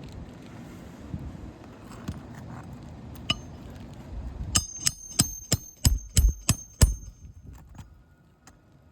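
Hammer striking a roof snake nailing tool to drive the last roofing nail into a shingle's nail strip: about eight sharp, ringing metallic blows, about three a second, starting about four and a half seconds in.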